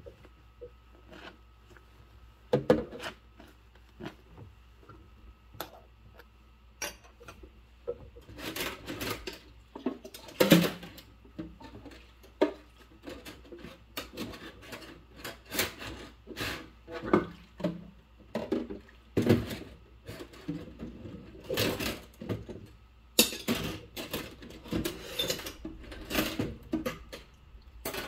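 Rubber-gloved hands washing a cup in a sink of soapy water: irregular rubbing strokes of glove on cup, with splashes, sloshes and small knocks. Sparse for the first few seconds, then busier and louder from about eight seconds in.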